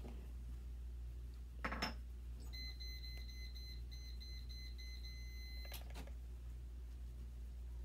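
A steady high-pitched electronic beep tone sounds for about three seconds and cuts off with a click. A brief soft noise comes just before it. A low steady hum runs underneath throughout.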